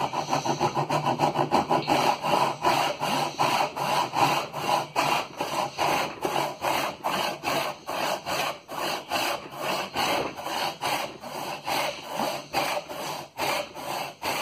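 A freshly re-sharpened Disston backsaw cutting through oak in rapid, even back-and-forth strokes, the teeth biting cleanly.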